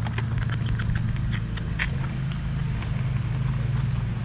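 A steady low hum like a running motor, with many light clicks and ticks over it.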